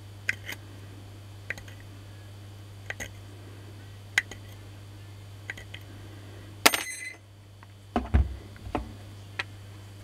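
A pointed metal pick scraping and clicking between the copper bars of a power-tool armature's commutator, cleaning out dirt in sparse light strokes over a steady low hum. Near two-thirds through comes a sharper metallic clink with a brief ring, then a few dull knocks as the armature is handled.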